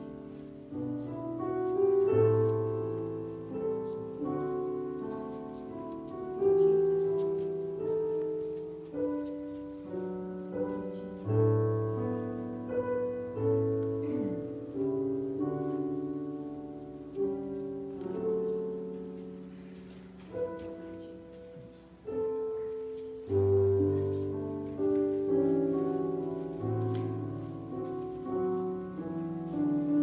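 Slow piano music: soft chords struck every second or two, each note ringing and fading before the next.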